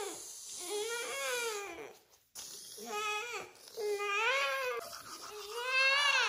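A young child crying in several long, wavering wails, with a brief pause about two seconds in.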